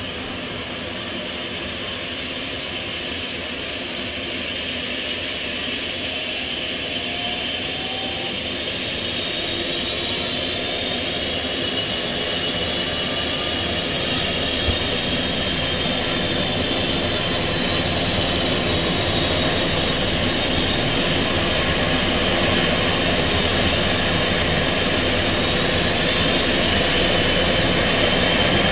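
Eurocopter EC135 T2i helicopter starting up on the ground: the twin turboshaft engines' whine rises in pitch as the rotor spools up, growing steadily louder.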